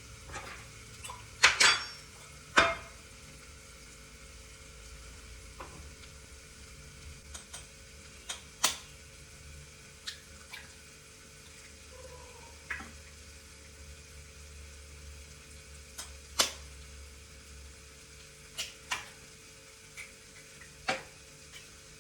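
Metal utensil knocking and scraping against a cooking pan while stirring, a dozen or so sharp clinks spaced irregularly, the loudest about two seconds in, over a steady low hum.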